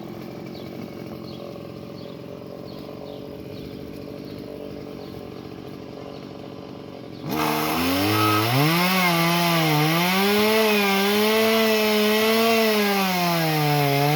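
Chainsaw idling faintly, then about seven seconds in it is throttled up to full speed and cuts into a tree limb, its pitch wavering up and down as the chain bogs and recovers in the wood.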